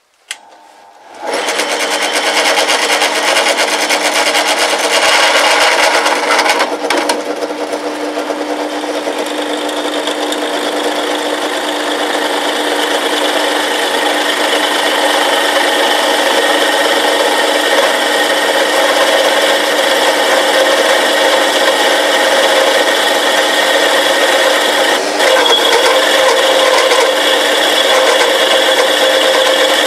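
Drill press driven by a 380 V three-phase induction motor wired in delta on 220 V single phase without a capacitor. It is spun up by hand, comes up to speed about a second in, and runs loud and harsh with a many-toned hum while a 17 mm twist drill cuts into steel plate.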